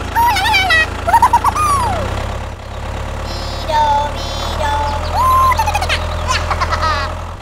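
Tractor engine sound, a steady low idling hum that dips briefly partway through, with several high, squeaky cartoon-like voice sounds gliding up and down over it.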